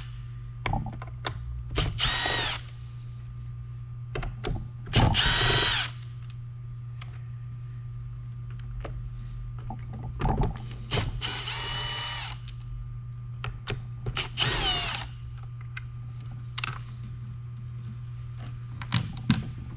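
A cordless drill/driver with a 1/8-inch hex bit spinning out the bumper bolts of a Onewheel+ XR, in about five short whining bursts whose pitch rises and falls, with small clicks and rattles of the bolts and driver between them. A steady low hum sits underneath.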